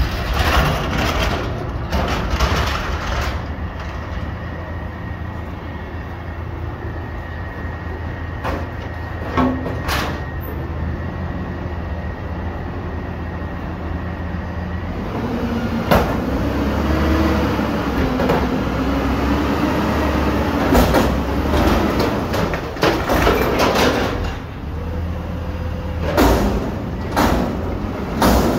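Garbage truck's diesel engine running, with repeated sharp knocks and bangs. About halfway through, the engine's pitch rises and falls for several seconds.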